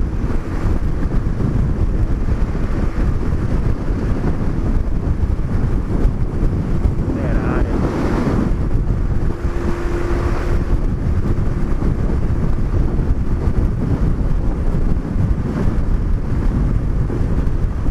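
Wind buffeting the microphone of a moving motorcycle, a steady heavy rush with the vehicle's running noise underneath.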